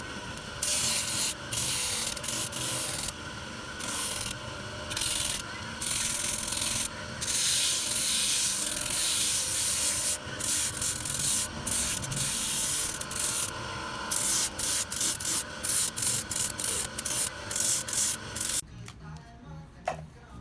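Motor-driven sanding drum grinding the edge of a layered sandal sole: a loud abrasive hiss that comes and goes as the sole is pressed on and eased off, over the steady hum of the spinning drum. It stops suddenly near the end.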